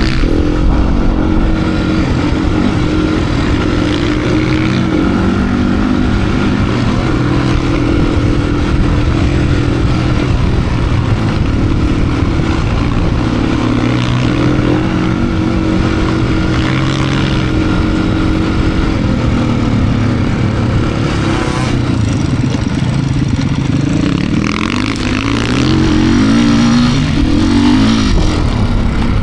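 2025 Beta RR390 X-Pro's single-cylinder four-stroke engine running hard, its pitch stepping up and down with constant throttle changes as the bike works through deep sand. Near the end the revs sweep up and back down.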